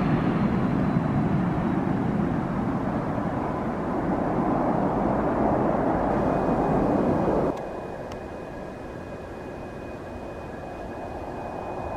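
Business jet engines rolling out after landing, a loud, dense rush of jet noise that cuts off suddenly about seven and a half seconds in. After that, a quieter Bombardier Global 7500 flying low with gear down, its engines giving a steady high whine over a low rumble.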